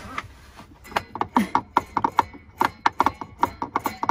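Hand screwdriver with a square (Robertson) bit turning a screw in a metal bracket, making a run of quick, uneven clicks that start about a second in.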